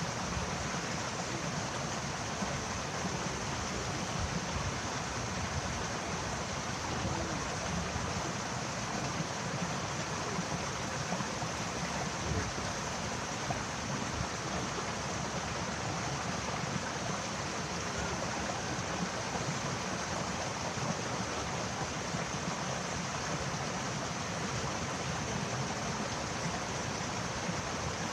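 Steady rushing of flowing river water, an even, unbroken wash of noise.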